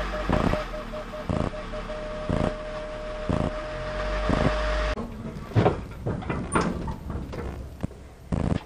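Jeep Wrangler Rubicon's reverse parking-sensor chime: beeps that come closer together and merge into one steady tone as the Jeep backs close to an obstacle, over the engine idling. About five seconds in it cuts off, giving way to scattered clicks and knocks of hands working at the roof-rack mounts.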